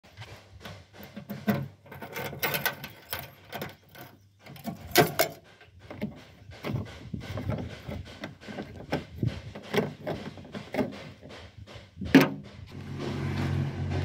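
Clicks, knocks and scrapes of a tractor's hinged metal fuel-filler flap being opened and its tank cap being unscrewed, with sharper knocks about five seconds in and again about twelve seconds in. Near the end a steady low rumble comes in.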